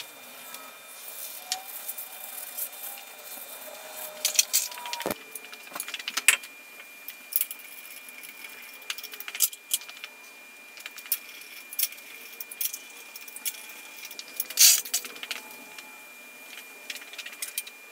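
Irregular sharp metallic clinks and rattles of wheel bolts and a hand tool as a road wheel is hung back on the hub and its bolts are started.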